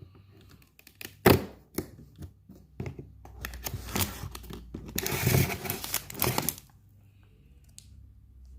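Food packaging being handled and torn open, with crinkling and rustling. A few sharp knocks and clicks come first, then a longer stretch of loud tearing and crinkling past the middle.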